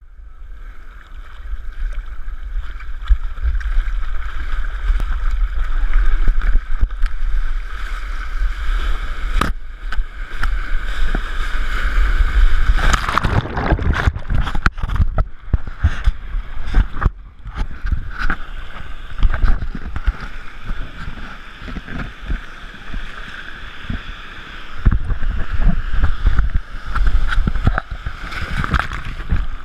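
Sea water sloshing and rushing against a GoPro camera's waterproof housing on a bodyboard out in the waves, with a steady low rumble throughout. About halfway through it gets louder and churns as a wave breaks over the board and the camera goes under.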